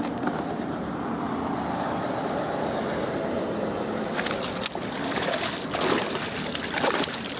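Steady rushing background noise, then a hooked bass splashing at the surface beside the kayak from about four seconds in.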